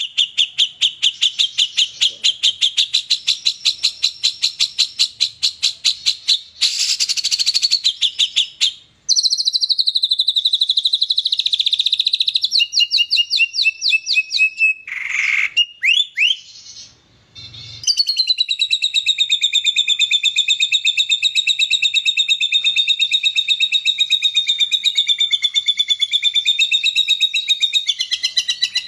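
Caged white-rumped shama (murai batu) singing loudly and continuously: fast trills and rapid runs of repeated high notes, switching phrase several times, with a brief pause a little past the middle. Its song is filled with learned imitations of kapas tembak, cililin and canary.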